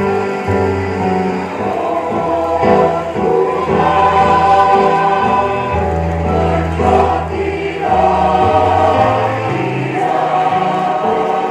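Mixed choir of women's and men's voices singing in chords under a conductor, moving from one sustained note to the next.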